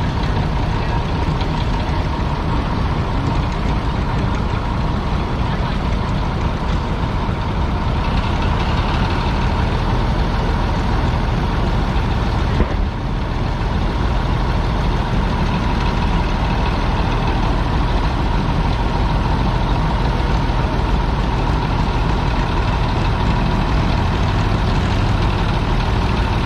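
International Harvester TD-24 crawler bulldozer's diesel engine running steadily, with a brief dip in loudness about halfway through.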